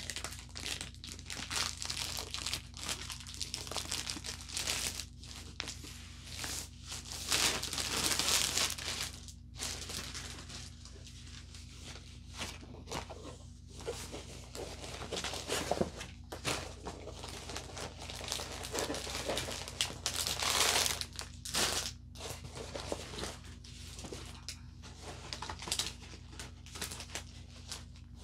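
Paper and plastic packaging crinkling and rustling as a rolled diamond painting canvas is unwrapped and slid out of its sleeve. The handling comes in irregular bursts, with louder stretches about a quarter of the way in and again past the middle.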